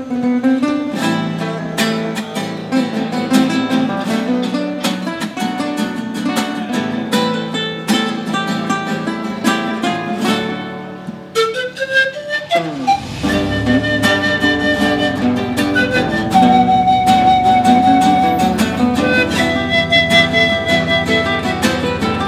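Pan flute and acoustic guitars playing a melody, the flute holding long notes over plucked guitar. The music breaks off briefly about halfway through, then resumes.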